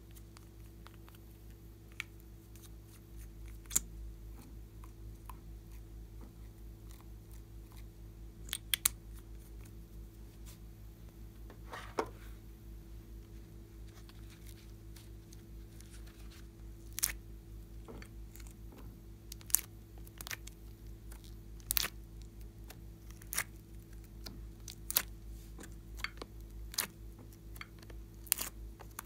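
Scattered sharp clicks and taps of hands handling slime-craft items: a marker pen, a silicone heart mold and the hearts being pushed out of it. The taps come more often in the second half, over a low steady hum.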